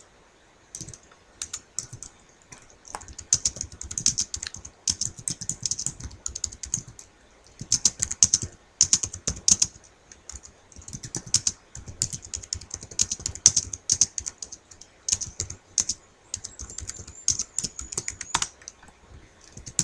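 Typing on a computer keyboard: quick runs of key clicks in bursts, with short pauses between them.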